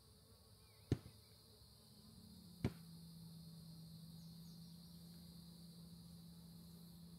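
Honeybee buzzing steadily close by, starting about two seconds in, over a faint steady high insect whine. Two sharp taps stand out, about a second apart in the first three seconds.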